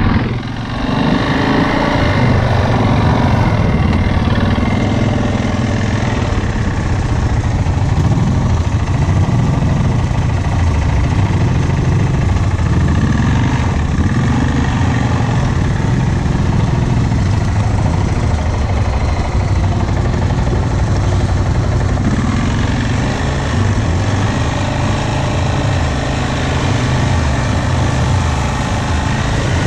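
ATV V-twin engine running close to the rider as it rides a trail, its pitch rising and falling with the throttle.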